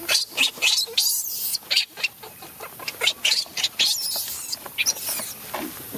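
A baby macaque gives a rapid series of short, high-pitched screams and squeals. These are distress cries from an infant being refused milk by its mother.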